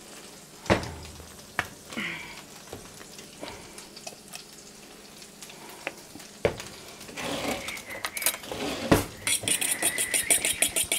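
A few sharp clicks and knocks as a plastic squeeze bottle of mustard is opened and handled over a stainless steel mixing bowl. From about seven seconds in, a spoon scrapes quickly and rhythmically round the metal bowl, stirring sauce.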